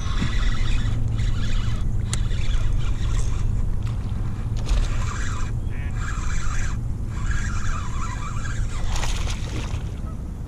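Handling and water noise aboard a kayak: a steady low rumble with irregular bursts of hiss and scraping every second or so.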